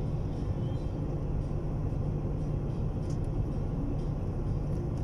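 Steady low rumble heard on board a boat at sea: the boat's engine and wind on the microphone.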